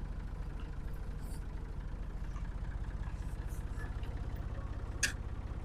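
Tractor engine idling steadily with an even low pulse, and a single sharp click about five seconds in.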